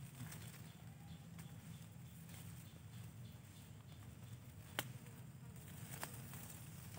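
Faint, steady buzzing of a flying insect. A sharp click comes about five seconds in and a softer one a second later, as a metal digging rod works the soil.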